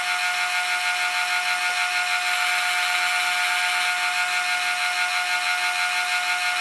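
Metal lathe running steadily while turning brass bar stock, giving a constant whine of several tones over a high hiss.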